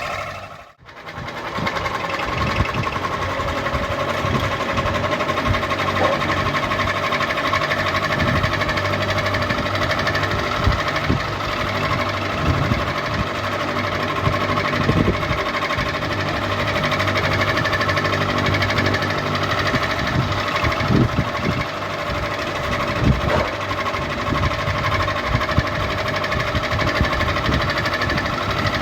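Ceiling fan running: a steady motor hum with irregular low knocking and rattling. The sound drops out briefly about a second in, then carries on as before.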